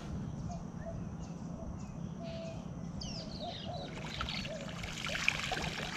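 A cast net thrown into shallow estuary water. Wading water sloshes faintly, then about four seconds in comes a spreading hiss of splash and trickle as the net lands on the surface.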